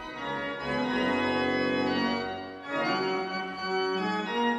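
Pipe organ playing slow held chords, the chord changing every second or so.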